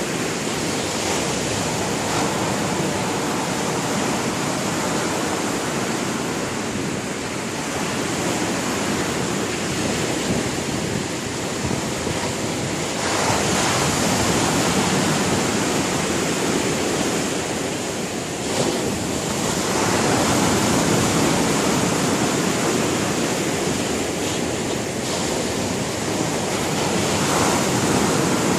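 Sea surf washing onto the shore: a continuous rush of breaking waves that swells and eases several times.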